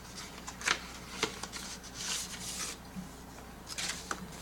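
Paper and plastic packaging being handled: a rustle with a few light clicks and taps.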